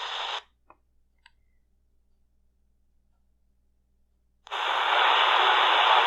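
C.Crane Skywave shortwave receiver hissing with static, which cuts off about half a second in. Two faint clicks follow, then about four seconds of near silence as the radio goes quiet between frequencies, and the static hiss comes back suddenly near the end.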